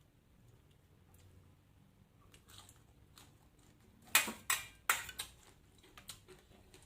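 A person eating close to the microphone: faint mouth clicks, then three loud crunchy bites about four seconds in, followed by quieter chewing.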